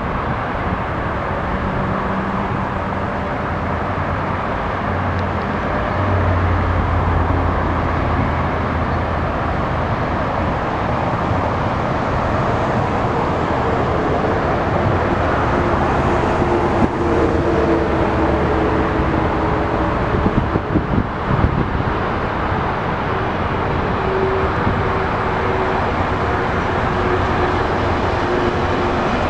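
ChME3 diesel shunting locomotive running light, its six-cylinder diesel engine running steadily with a low hum that swells a few seconds in. A short run of sharp knocks comes about twenty seconds in.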